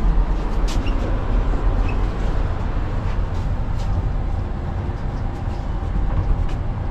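Passenger lift running between floors, heard from inside the car: a steady low rumble and hum.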